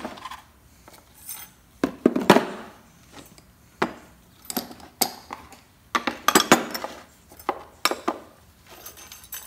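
Small steel brake-pad clips and hand tools clicking and clinking in an irregular series as the clips are pried off a caliper bracket and set down on a wooden workbench.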